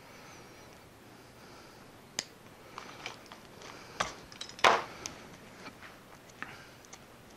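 Sharp clicks and snaps of a hand tool stripping the insulation off the cut wire ends of a neon transformer's switch leads: about five separate snips, the loudest near the middle.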